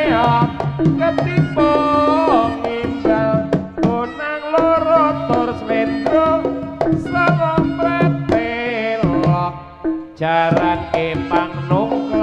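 Live Javanese jaranan ensemble music: hand drums play busy strokes under a pitched melody line that slides between notes.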